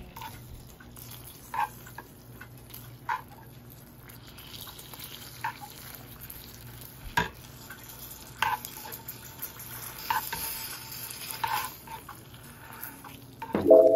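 Metal spoon stirring hot, bubbling sugar syrup in a frying pan, with a steady faint sizzle and a sharp knock of the spoon against the pan every second or two.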